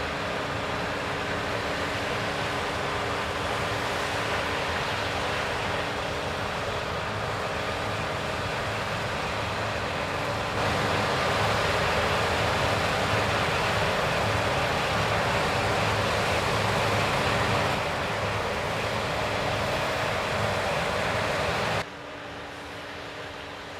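CLAAS Lexion 7500 combine harvester running as it harvests wheat: a steady mechanical drone with a held hum through it. It gets louder about ten seconds in and drops off sharply near the end.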